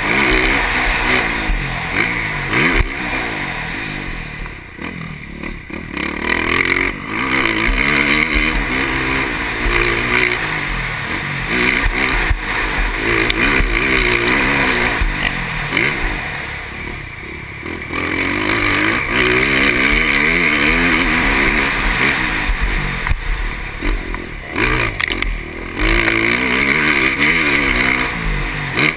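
KTM motocross bike engine revving hard and backing off again and again as it is ridden around a dirt track, heard close up from the rider's helmet camera. The engine note drops away briefly about five seconds in, again around seventeen seconds and around twenty-five seconds, then picks up once more.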